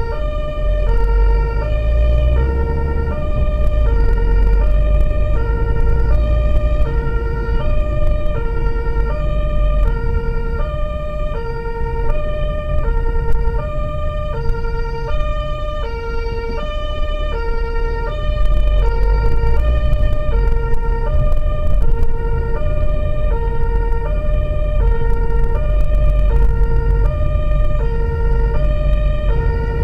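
German two-tone emergency siren (Martinshorn) sounding continuously on the vehicle during a blue-light run. It alternates evenly between a low and a high note, each held about two-thirds of a second, and is heard from inside the vehicle over steady engine and road rumble.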